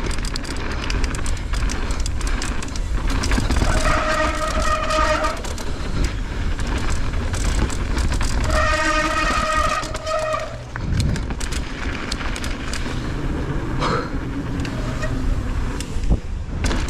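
Steady wind and trail rumble of a mountain bike ride, broken twice by a long, steady horn-like tone, the two tones about five seconds apart.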